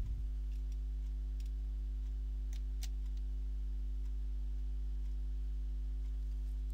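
Steady low electrical mains hum on the recording, with a few faint, sharp clicks.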